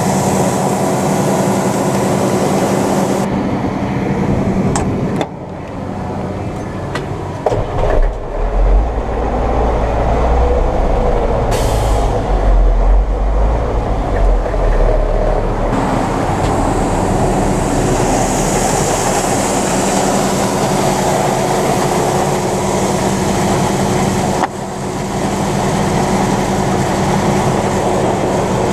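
John Deere 9500 combine running with a steady, loud machine drone. A deeper low rumble comes in for several seconds in the middle, and there is a sudden click about 24 seconds in.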